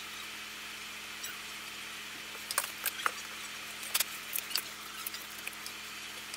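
Several light clicks and taps of small tools being handled and set down on a workbench, bunched between about two and a half and five and a half seconds in, over a steady hum.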